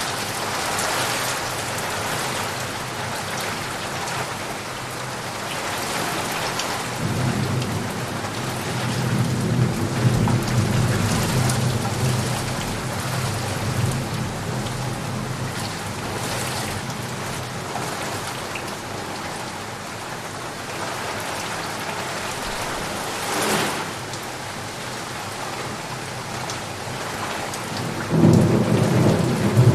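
Heavy rain pouring steadily. A long low roll of thunder rumbles through about a quarter of the way in, and another starts near the end.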